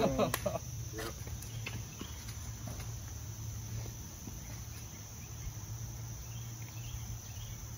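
Insects chirring outdoors in a steady, unbroken high-pitched drone.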